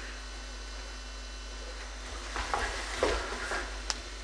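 Quiet room hiss, then from about two seconds in a few soft scuffs and a light click from an actor's shoes moving on a wooden stage floor.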